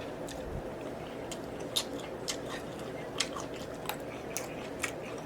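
Chewing food with scattered short, wet mouth clicks and smacks, about a dozen in a few seconds.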